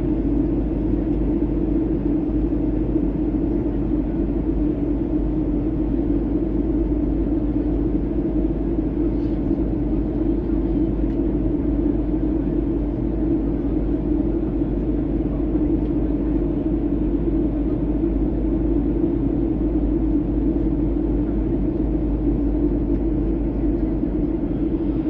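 Steady, unbroken drone of an airliner cabin in flight: engine and airflow noise heard from inside the plane.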